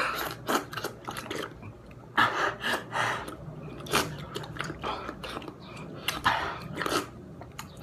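People lapping water from bowls with their tongues, an irregular run of short wet licking and slurping noises.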